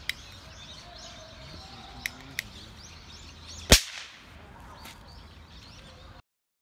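A small sample of silver fulminate on a clamp goes off with a single sharp crack a little under four seconds in, after a few faint clicks. Birds chirp in the background.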